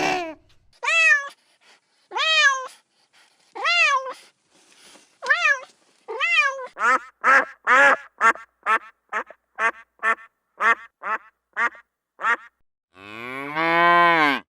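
An animal calling over and over in short cries that rise and fall in pitch. The cries come about every second and a half at first, then quicker and shorter, and one longer, lower call closes near the end.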